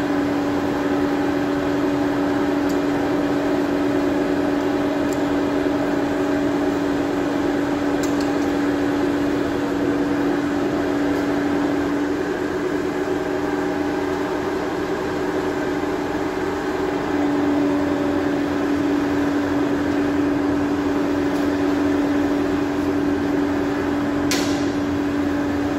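Forge furnace's electric air blower running with a steady hum, its main tone fading for a few seconds midway and then returning. A single faint click sounds near the end.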